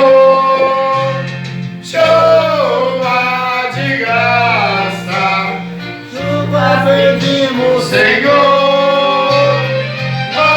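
Church music: singing over guitar and a bass line of held notes that change every second or two.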